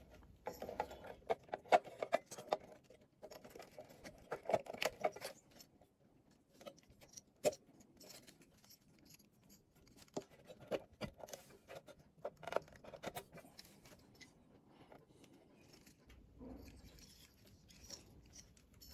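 Irregular small clicks, taps and short scrapes of hand tools and metal parts being handled as a guitar amplifier's output amplifier board is opened up.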